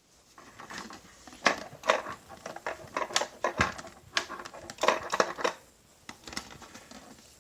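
A run of irregular, sharp clicks and knocks of things being handled, thickest in the first five and a half seconds, then a few faint ticks.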